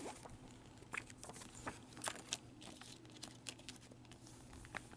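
A plastic Blu-ray case and its packaging being handled: scattered light clicks and faint crinkles of plastic.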